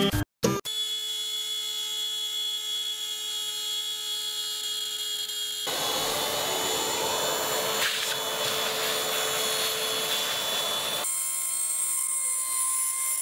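Brushless RC-car motor spindle on a 3D printer converted to a CNC router, whining steadily as its bit cuts into wood. From about 6 to 11 s a louder, rougher cutting noise takes over. Near the end a higher whine has tones that dip and rise about once a second as the machine moves.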